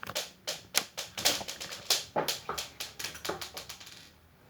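Crunchy slime packed with small foam beads being squeezed and worked by hand. It gives a quick, uneven run of sharp clicks and crackles that thin out and stop about four seconds in.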